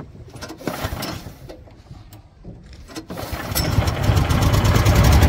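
Small boat engine being started: a first try turns it over for about a second without catching, then about three seconds in it catches and runs steadily with a fast, even beat.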